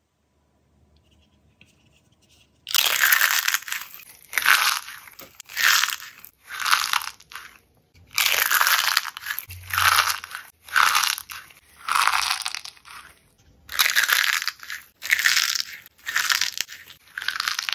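Crumbly, crunchy filling being crushed by hand inside soft silicone cupcake moulds. It starts a few seconds in as a run of loud crunches, roughly one a second.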